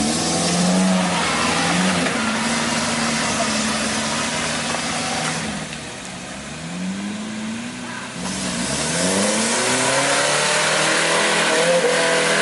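Off-road jeep engine revving hard, its pitch rising and falling again and again. It eases off about six seconds in, then revs up again.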